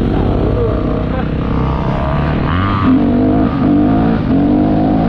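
Yamaha YZ motocross bike engine accelerating hard on a dirt track, its pitch climbing and dropping several times as the rider works the throttle and gears, heard close up from the bike being ridden.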